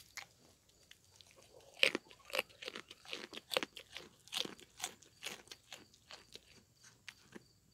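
Goat chewing a piece of raw carrot: a steady run of crisp crunches, about two to three a second, starting about two seconds in.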